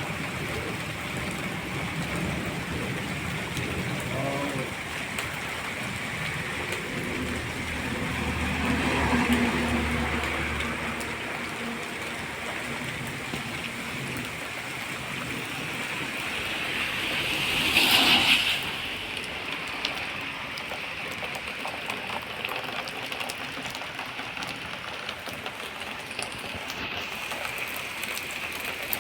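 Steady rain falling, an even hiss throughout. It swells louder twice: gently about nine seconds in, and more sharply at about eighteen seconds.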